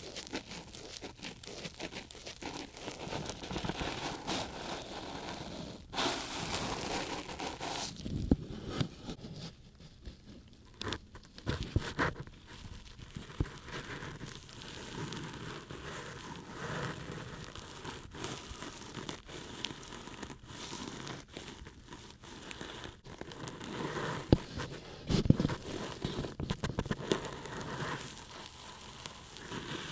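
Close-up ear-cleaning sounds: an ear pick scratching and rubbing in the ear, making dense, irregular crackling and small clicks, with a few sharper, louder scrapes.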